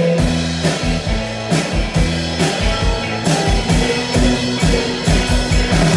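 Live rock band playing an instrumental stretch between vocal lines: electric guitars over a drum kit keeping a steady beat.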